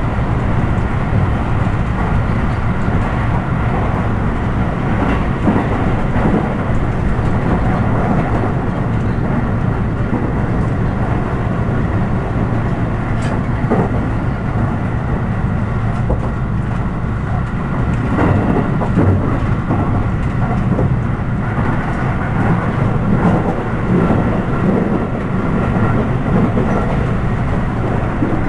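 Electric train running at speed, heard from inside the passenger car: a steady rumble of wheels on rail.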